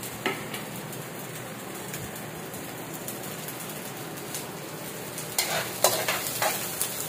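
Ginger and onion sizzling in hot oil in a steel wok, with a metal spatula scraping and clacking against the pan as they are stirred. The clatter of the spatula is loudest about five and a half to six and a half seconds in.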